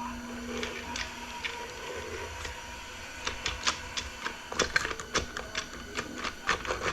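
Metal parts of a 4L60 automatic transmission clicking and clacking as they are handled and moved by hand. The clicks are scattered at first and come quickly and irregularly from about three seconds in.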